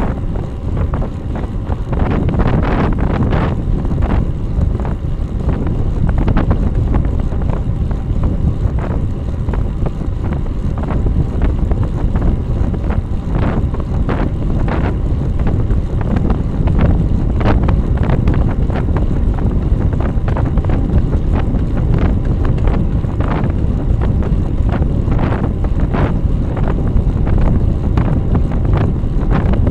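Wind rushing over the microphone of a bicycle-mounted rear camera at about 32–35 km/h, with tyre and road noise: a loud, steady low rumble broken by scattered short knocks.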